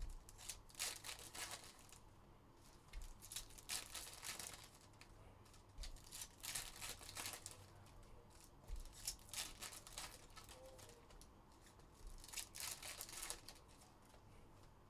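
Foil wrappers of trading-card packs being torn open and crinkled, with cards sliding against each other as a stack is handled. The quiet rustling comes in short clusters every two to three seconds.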